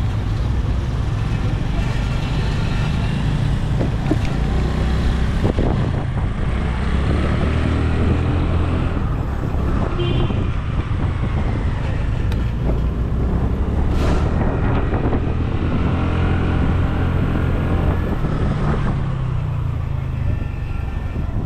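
Motor vehicle engine running steadily with road noise, heard from on board.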